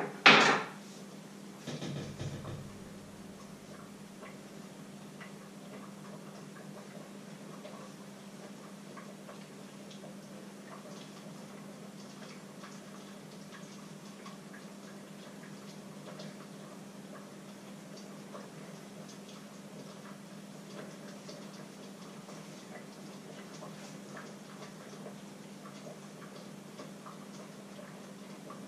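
A loud clatter of kitchenware just after the start and a second, softer clatter about two seconds in. After that, a faint steady hum with faint, scattered ticking.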